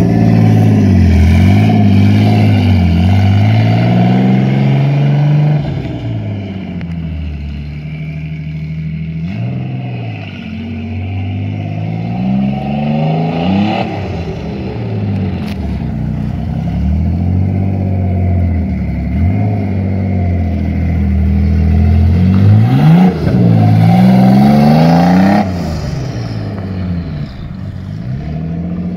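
Twin-turbo Nissan 350Z's V6 engine being driven hard, revving up and dropping back over and over as it accelerates and lifts off. It is loud close by at the start and again a little after 22 seconds, quieter as the car drives farther off in between.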